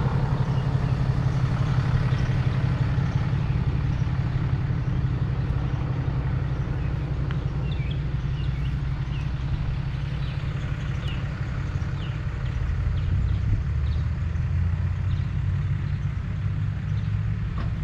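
Steady low engine hum, with a few faint short high chirps partway through.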